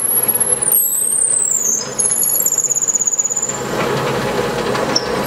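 Drill press boring a hole through a small wooden spacer: a high-pitched squeal that wavers and glides in pitch over the rasp of the bit cutting. The cutting noise grows heavier from about halfway through.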